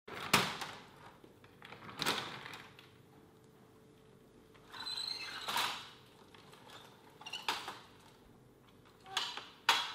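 Folding metal lattice security gate being handled and slid: a series of sharp metallic clanks, about six in all, with a high squeak of the gate sliding just before the middle clank.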